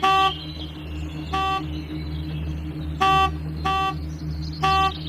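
A horn giving five short toots of about a third of a second each, unevenly spaced, over a steady low hum.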